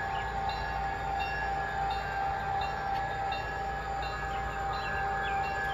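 G scale model diesel locomotive rolling slowly forward, giving a steady whine over a low rumble. Short high chirps repeat about twice a second in the background.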